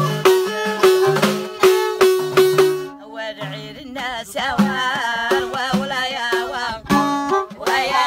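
Amazigh folk music: a plucked string instrument picks a repeated riff over a steady beat, then about three seconds in it drops back and a woman's voice sings a wavering melody, the plucked riff returning near the end.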